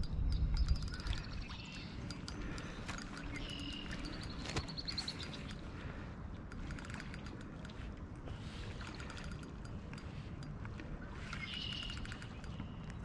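Small birds chirping and calling, with short calls twice, a few seconds in and again near the end, over a scattering of small clicks. A low rumble of wind or handling noise fills the first second.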